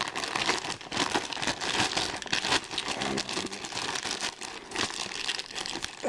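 Plastic packaging bag crinkling and rustling as a toy figure is worked out of it by hand, an irregular run of small crackles.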